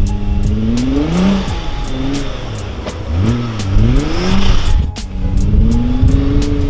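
A 600 bhp Nissan GT-R engine revving hard as the car drifts, its pitch climbing and falling again several times, with a brief lift off the throttle about five seconds in. Background music with a steady beat plays along.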